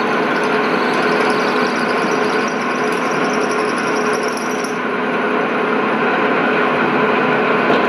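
Milling machine spindle running with a tapping drill boring out the threaded hole in an aluminium Lockheed/Girling brake expander body, a steady machine whine and cutting noise. A higher hiss from the cut stops a little past halfway.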